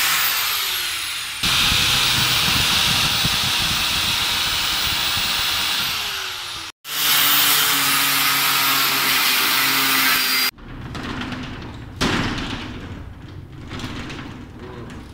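Angle grinder cutting through the lock of a metal rolling shutter: a loud, harsh grinding over the steady whine of the motor, broken once partway through. About ten seconds in the grinding stops, and a few quieter knocks follow.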